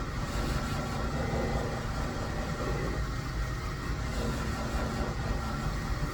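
Typhoon shear-sharpening machine running steadily, with the continuous hiss of a shear blade being ground on its spinning hone.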